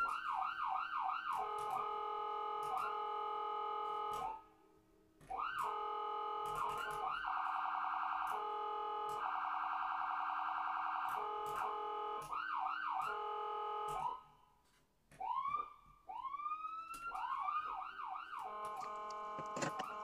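Electronic siren-like sounds: quick rising whoops that settle into steady, warbling multi-note tones. They come in three phrases with two short breaks.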